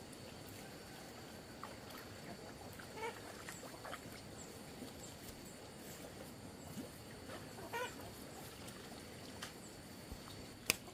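Ducks giving a few short, faint calls, with a sharp click just before the end.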